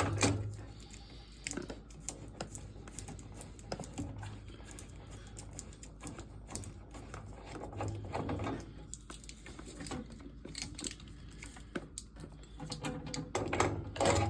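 Irregular clicks, taps and knocks of hand work with tools and parts, with a few louder knocks about 8 seconds in and near the end.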